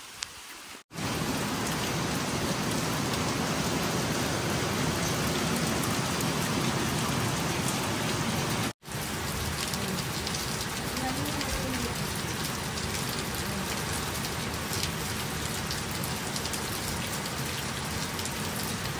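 Heavy rain falling steadily, coming in abruptly about a second in and cutting out for a moment near the middle.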